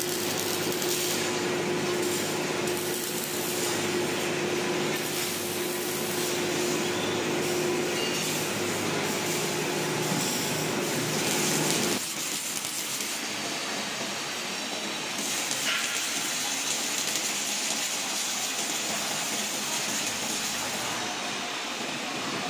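Robotic MIG welding arc crackling and hissing steadily as the torch runs along steel sheet-metal furniture frames, with a steady hum in the first half. About halfway through the sound changes abruptly, losing the hum and much of the low end.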